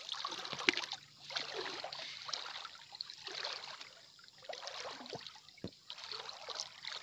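Shallow seawater splashing and sloshing in irregular surges, with one sharper splash a little under a second in.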